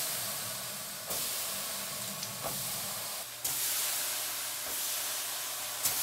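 Shower water spraying, a steady hiss that jumps abruptly in level a few times where short shots are joined.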